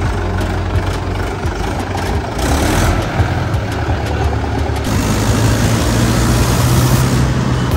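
Mahindra 475 DI tractor's diesel engine running steadily as the tractor drives along, a low, even hum. About five seconds in the sound changes to a steadier, stronger low drone.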